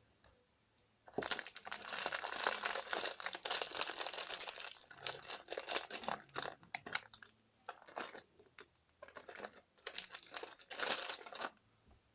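Close crinkling and rustling handling noise in long spurts, starting about a second in and stopping shortly before the end, with a couple of short pauses in the middle.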